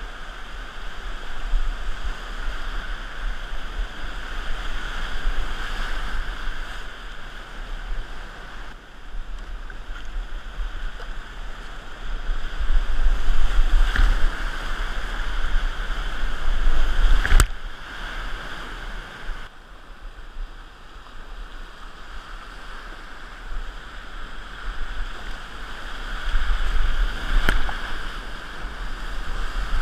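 Whitewater rapids rushing and churning around a kayak, heard up close from the boat, rising and falling in loudness as it runs the drops. There are two sharp knocks, one a little past halfway and one near the end.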